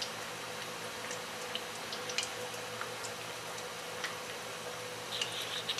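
Onion fritters (ulli vada) deep-frying in hot oil on a low flame: a steady sizzle with scattered small pops and crackles, a quick run of them close together near the end.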